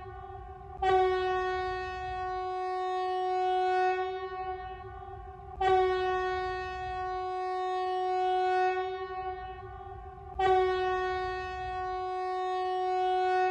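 Emergency alert alarm tone: one steady, buzzy horn-like tone held without a break. It is re-struck with a sharper, louder start about every five seconds, three times, over a low rumble.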